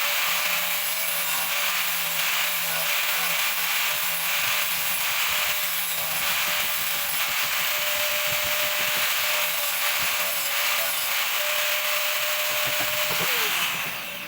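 A power tool runs steadily under load with a loud, hissing grinding or cutting noise and a steady motor hum. Its motor pitch drops as it winds down near the end.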